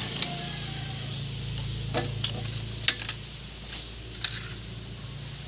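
Scattered metallic clinks and taps of hand tools on brake parts, half a dozen at irregular intervals, over a steady low hum.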